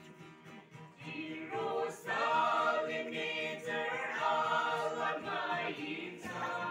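A small mixed gospel group singing a hymn together in harmony, softer at first and swelling about a second in.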